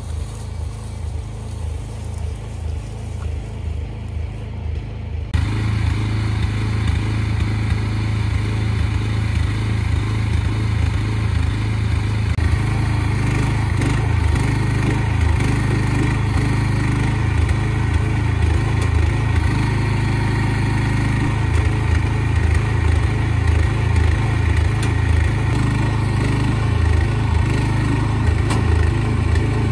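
Engine of a Yamabiko tracked forest carrier running steadily while its crane loads logs. It is fainter at first, then nearer and louder after a sudden step about five seconds in.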